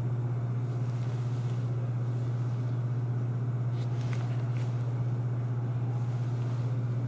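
A steady low hum, with a few faint clicks about four seconds in.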